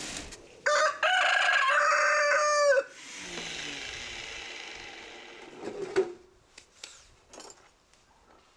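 A rooster crowing once, a loud multi-syllable crow with a long held final note, lasting about two seconds. After it come faint background hiss and a single sharp knock about six seconds in.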